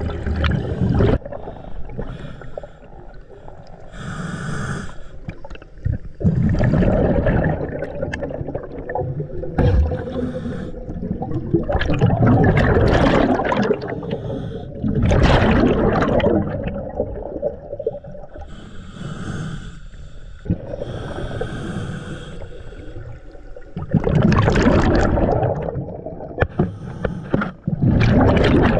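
Scuba diver breathing through a regulator underwater: hissing inhales alternating with rough, bubbling rushes of exhaled air several times over.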